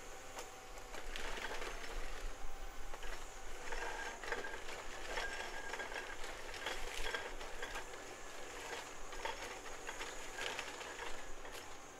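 Forestry machine's diesel engine running steadily under load, with irregular clatter and surges of noise from the working machine.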